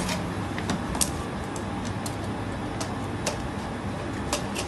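Plastic supplement bottle being handled as its screw cap is twisted off and set down: a scattering of sharp, irregular plastic clicks and taps over a steady low background hum.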